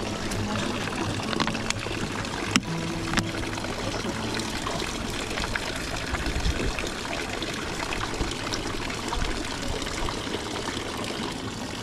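Water pouring steadily from a public drinking fountain's spout, with a sharp click about two and a half seconds in.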